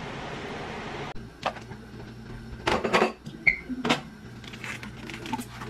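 Kitchen clatter: a handful of sharp knocks and clinks of utensils and dishes against a cooking pot, with one short high-pitched chirp in the middle. A steady hiss in the background stops abruptly about a second in.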